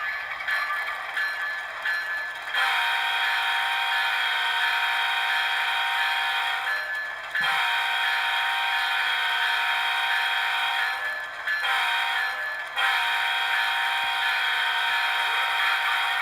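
LokSound sound decoder in an InterMountain ES44DC model diesel locomotive sounding its multi-note horn in a grade-crossing sequence through the model's small speaker. The horn comes as long blasts broken by short gaps about seven seconds and about eleven to thirteen seconds in, over a low steady engine idle.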